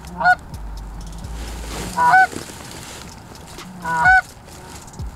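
Three loud, short goose honks about two seconds apart.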